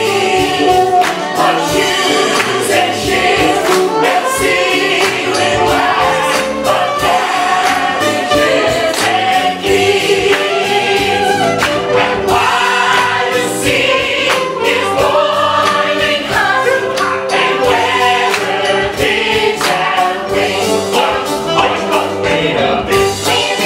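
A stage musical's cast singing together in chorus, accompanied by a live band with a steady drum beat.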